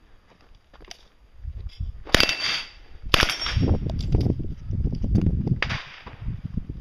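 Three gunshots: two about a second apart, then a third some two and a half seconds later, with a low rumble between the second and third.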